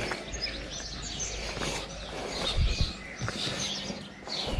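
Small birds chirping and twittering in short scattered calls, over a low rumble on the microphone that swells briefly a little after halfway.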